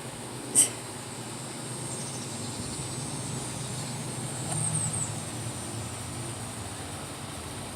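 Low, steady engine rumble of passing traffic, swelling slightly about halfway through. A sharp click about half a second in, and three quick high bird chirps near the middle.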